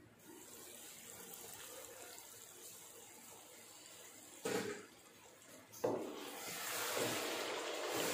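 Chicken masala bubbling and sizzling in a large nonstick pot, faint at first, with a sharp knock about four and a half seconds in and another near six seconds. After that the sizzling is louder, with a wooden spatula stirring and scraping the pot.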